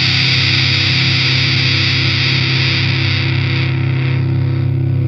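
ESP LTD strat-style electric guitar through a Line 6 Helix, a distorted chord held and ringing out. Its bright upper notes fade away about three to four seconds in while the low notes keep sounding.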